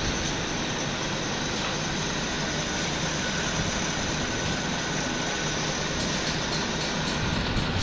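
Belt-driven pillar drill press running steadily, its bit cutting into a metal mould plate, with a few light ticks near the end.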